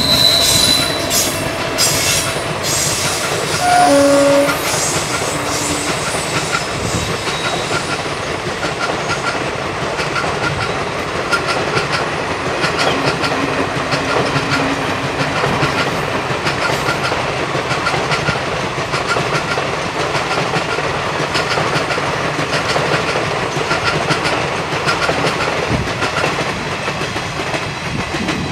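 Express train of passenger coaches behind a WAP-7 electric locomotive running past at speed, its wheels clattering over rail joints in a steady repeating rhythm. A short horn sounds about four seconds in.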